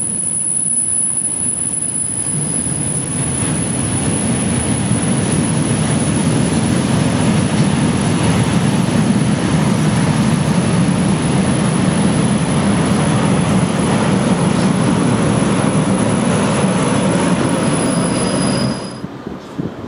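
A freight train of loaded double-deck car-carrier wagons rolling past on the rails: a steady, loud rumble of wheels on track, with a thin high-pitched whine over it. Both cut off abruptly near the end as the last wagon passes.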